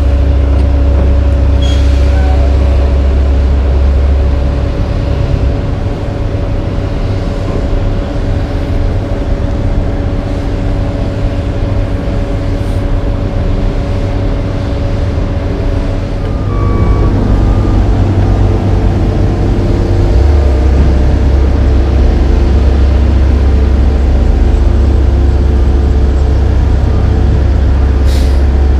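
Heavy diesel engines of dump trucks and an asphalt paver running steadily with a strong low rumble. The engine note shifts to a different pitch a little past halfway.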